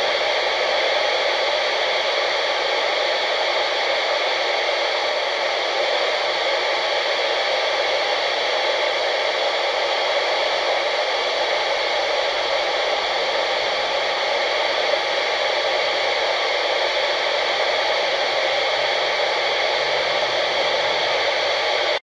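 Steady FM static hiss from a handheld ham radio transceiver's speaker, tuned to 29.6 MHz with no station transmitting on the channel.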